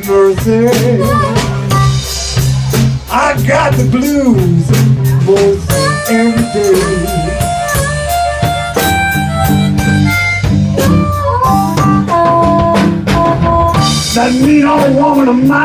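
Live blues band playing: amplified harmonica wailing with bent notes over electric guitar, bass and drums, with held, stepping melody notes through the middle.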